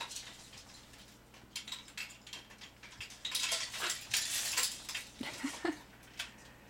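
Macaw's beak clicking and snapping on a hard acrylic bead toy as it chews it: irregular sharp clicks, busiest around four seconds in, with a couple of brief squeaks a little after five seconds.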